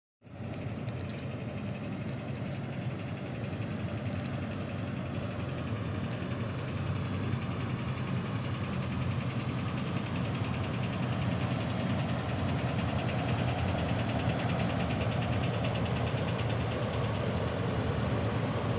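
Ram 6.4-litre HEMI V8 running just after start-up, with a fast, even knocking that the owner identifies as engine knock. A few sharp clicks sound in the first second.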